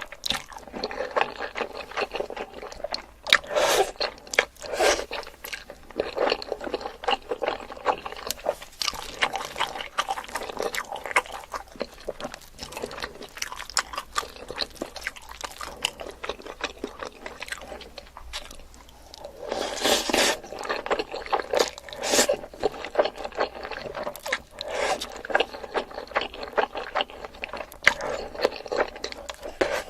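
Close-miked chewing and crunching of food: dense, irregular crisp crackles, with a short lull and then louder crunching about twenty seconds in.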